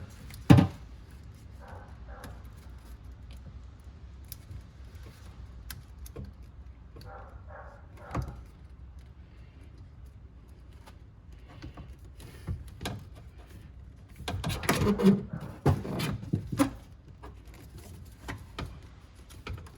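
Scattered clicks, knocks and light rattles of hands working at the plastic wiring plug on a car's power-antenna motor to unplug it. There is a loud click about half a second in and a busier run of knocks about fifteen seconds in.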